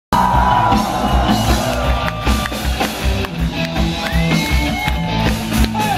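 Punk rock band playing live and loud, with pounding drums and electric guitar, heard from within the audience.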